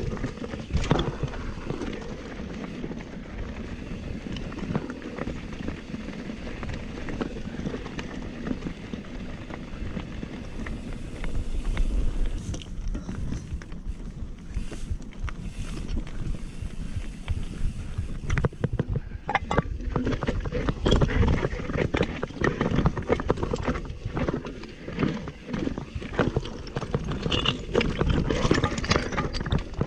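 Nukeproof Mega 297 mountain bike rattling down a rocky trail: tyres crunching over loose stones, with chain, frame and suspension clattering in quick irregular knocks, and wind buffeting the microphone. The clatter eases for a few seconds in the middle, then gets busy again.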